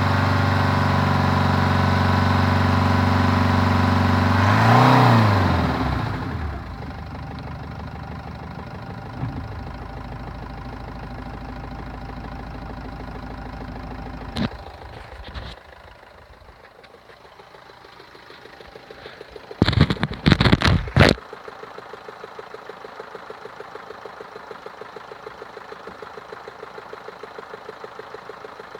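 Car engine held at raised revs, revved briefly and then dropping back to idle, with a knocking sound. Later come a few loud sharp bangs, and then an idle with a fast regular knock.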